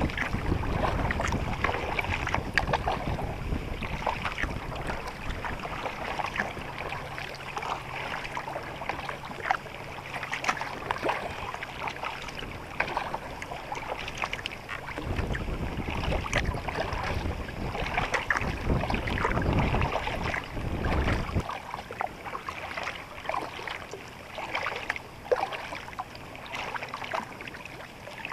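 Nordkapp sea kayak being paddled: the paddle blades dip and splash with dripping water, and water slaps along the hull. Wind rumbles on the microphone and drops away about three-quarters of the way through.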